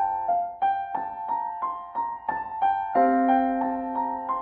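Background piano music: a steady run of single struck notes, about three a second, joined by a low held note about three seconds in.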